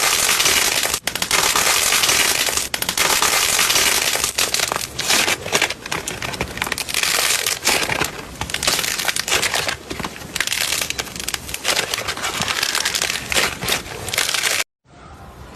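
Bubble-popping slime being squeezed and pressed by hand, giving dense, continuous crackling and popping. It cuts off abruptly near the end, then a few softer pops follow.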